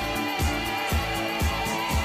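Upbeat pop music with a steady kick drum, about two beats a second, under held synth-like tones.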